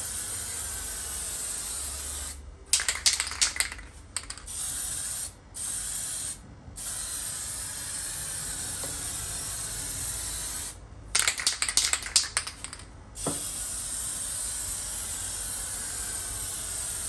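Aerosol can of etch primer spraying with a steady hiss that stops briefly several times. Twice, for a second or two, the hiss gives way to a rapid clicking rattle: the can being shaken, its mixing ball knocking inside.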